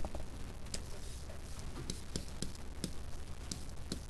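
Scattered light clicks and taps of a stylus on a tablet screen while writing, over a low steady hum.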